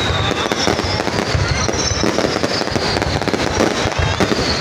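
Fireworks display: aerial shells bursting with a dense, continuous crackle of pops and bangs, over a high thin tone that glides slowly downward.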